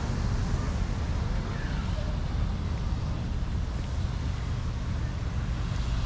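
Wind buffeting the microphone in a steady low rumble, over the even hiss of gentle surf on the beach.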